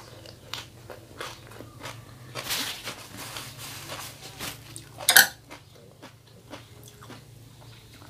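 Close-up mouth sounds of chewing a crunchy wrap of fresh leafy greens: crisp bites and wet chewing with many small crackles, a denser crackling stretch about two and a half seconds in, and one sharp, louder smack or click just after five seconds.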